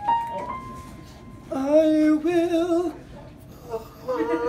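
Men's voices singing three long held notes with a wavering vibrato, the loudest in the middle, with short quieter gaps between them.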